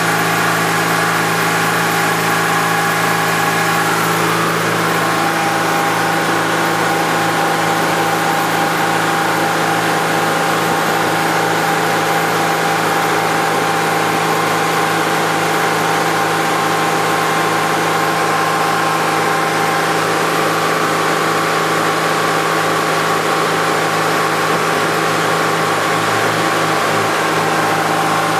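Mercedes-Benz OM603 straight-six turbodiesel with a Holset turbocharger running steadily under way, over an even rush of water and wind. Its note shifts slightly about four seconds in.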